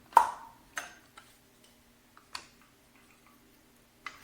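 A few sharp clicks and knocks, the loudest just after the start with a brief ring, then two more spread over the next couple of seconds: a small portafilter being fitted into the ground-coffee module of an espresso machine.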